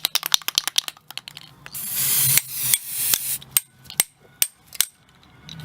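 Aerosol spray-paint can being shaken, its mixing ball rattling in quick clicks, then a spray of paint hissing for about a second and a half starting near two seconds in. Near the end, a few separate sharp clicks with a faint ring.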